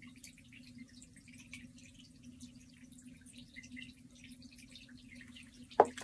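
Faint wet squelching and dripping of clay slip under fingers smoothing a lamp's neck on a potter's wheel, over the wheel's steady low hum. A single short knock near the end.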